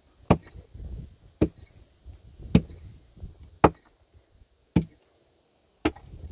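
Six heavy blows struck at a steady pace, about one a second.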